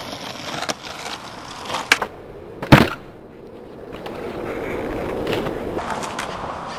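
Skateboard on asphalt: a sharp snap about two seconds in, then a loud clack of the board landing just under three seconds in. The wheels then roll over rough asphalt with a steady grinding hiss that grows louder.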